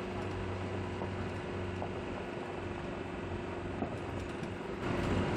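A vehicle engine running with a steady low hum, getting somewhat louder near the end.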